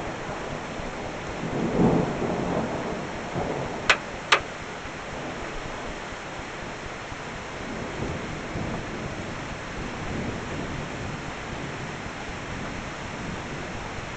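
Steady rain falling during a thunderstorm, with a low rumble of thunder swelling and fading about two seconds in. Two sharp clicks, close together, about four seconds in.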